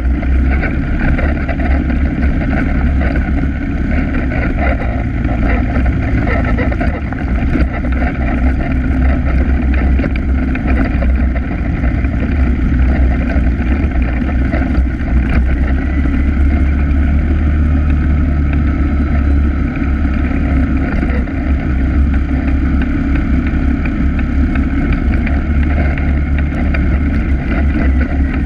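ATV engine running steadily while riding along a dirt forest trail, heard from the machine itself, with a heavy low rumble throughout.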